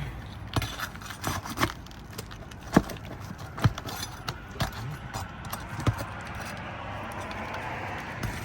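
Irregular sharp clicks, taps and scrapes from a hand tool prying under asphalt roof shingles to free the nails.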